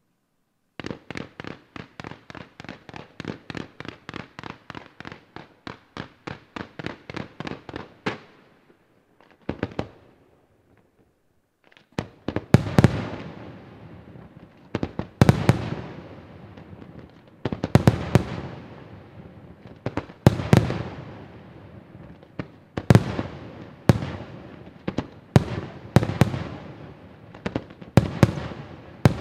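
Fireworks display. Starting about a second in, a rapid, even run of small firework reports comes about three or four a second, growing louder for several seconds. After a brief lull, large aerial shells burst with heavy booms about every two and a half seconds, with smaller shots and crackle between them.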